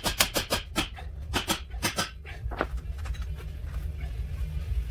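Hand ratchet clicking as a nut is run on at the front suspension: a quick string of sharp clicks that thins out and stops about two and a half seconds in. A low steady hum lies underneath throughout.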